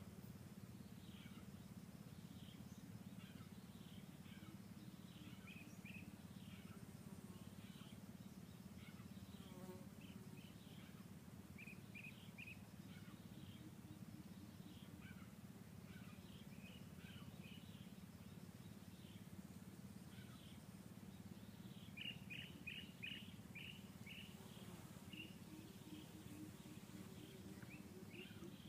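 Faint forest ambience: scattered short bird chirps over a steady low hum, with a quick run of chirps about 22 seconds in and a faint low pulsing trill near the end.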